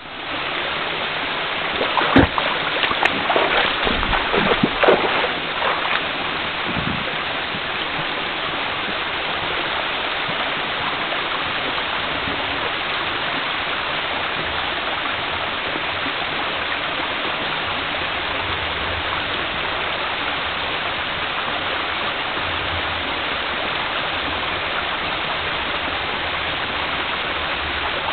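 Steady rushing of a waterfall, with a few sharp knocks between about two and six seconds in.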